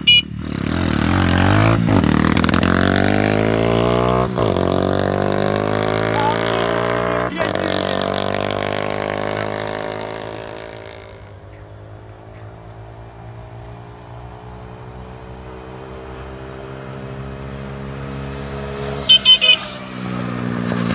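A 125cc pitbike engine revving hard as it pulls away, its pitch rising through each gear with three gear changes in the first eight seconds, then fading as the bike rides off into the distance. Three short horn beeps sound near the end.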